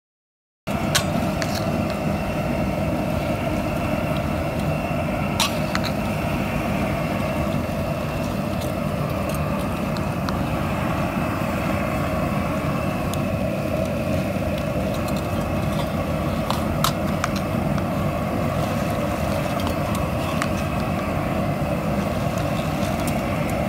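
A crawfish boiling pot at a rolling boil over its burner, making a steady, unchanging roar with scattered faint ticks and pops. The sound starts suddenly just under a second in.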